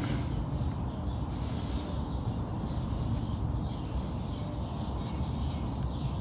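Outdoor background noise: a steady low rumble, with a short bird chirp about three seconds in.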